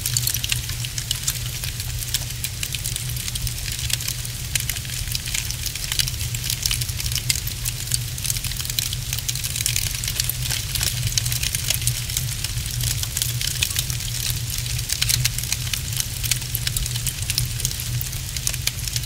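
Wood fire crackling in a fireplace: dense, irregular small pops and snaps over a steady low rumble.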